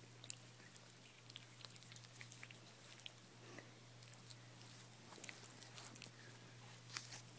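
Small dog chewing and biting on a paper bus pass: faint, with many small clicks of teeth and mouth.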